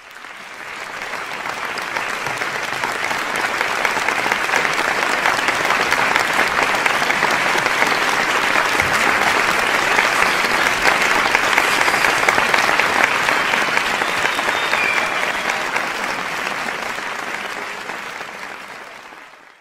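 An audience applauding, swelling up over the first few seconds, holding steady, then fading away near the end.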